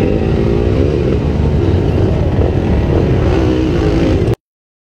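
Several dirt bike engines running and revving together over a heavy low rumble, pitch rising and falling; the sound cuts off suddenly a little over four seconds in.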